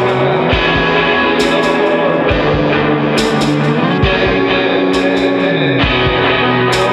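Instrumental music: layered sustained tones over bass notes that slide in pitch, with low thumps and a phrase that repeats about every second and three-quarters.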